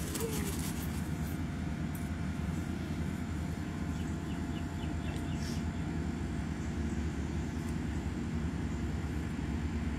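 Steady low drone of a distant engine, with a faint even hum over it and no change in pitch.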